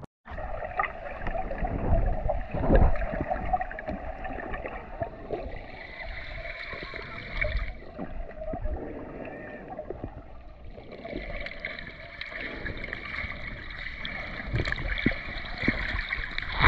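Muffled underwater sound picked up by a submerged camera: a steady rush of water with scattered low knocks and gurgles as the swimmer moves through the water.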